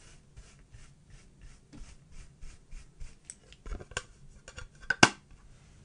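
Fluffy makeup brush swishing back and forth over pressed eyeshadow pans in a plastic palette, about three soft brushy strokes a second. In the second half come several sharp clicks and knocks, the loudest about five seconds in.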